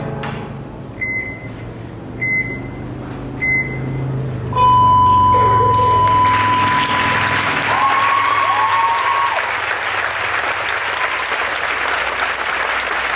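The last low notes of the song fade out, then an audience breaks into applause about five seconds in and keeps clapping. Whistles ring out over the applause: one long steady whistle, then shorter ones that rise and fall.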